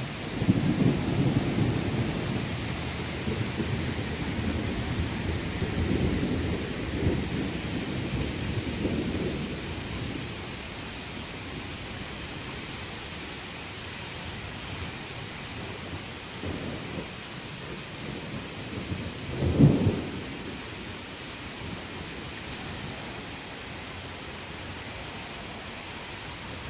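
Thunder rolling for about ten seconds, then a shorter, sharper clap about twenty seconds in, the loudest moment, over steady rain.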